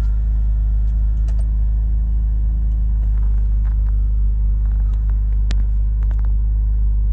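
BMW E93's engine idling steadily from cold with its mass airflow sensor unplugged: a low, even rumble. A smooth idle with the sensor unplugged marks the mass airflow sensor as bad.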